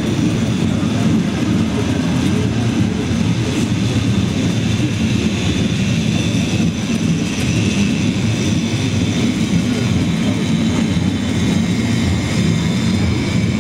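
Cable-hauled funicular car running downhill on its rails: a steady low rumble of the ride, with a thin steady high whine above it.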